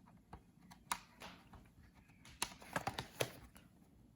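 Light clicks and taps of a screwdriver and fingers on a laptop's plastic base while its bottom screws are taken out. The clicks are scattered, with a quick run of several about two and a half to three seconds in.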